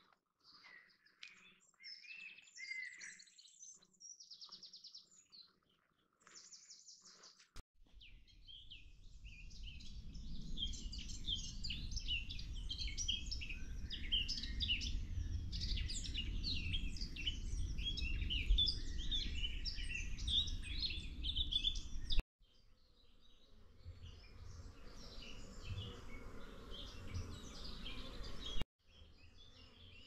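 Woodland songbirds singing: a few scattered songs and trills at first, then from about eight seconds in a dense chorus of many birds over a low rumble. The sound cuts off sharply twice.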